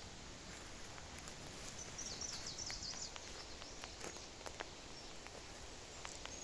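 Footsteps and twig crackles on a forest floor while walking through undergrowth, as scattered soft clicks. A songbird sings a short phrase of quick, high, falling notes about two seconds in.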